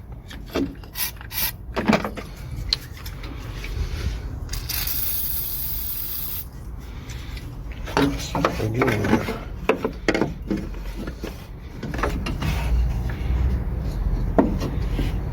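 Clicks, knocks and rubbing from a small metal fuel-system valve part being handled and cleaned. A hiss lasting about two seconds comes about four and a half seconds in.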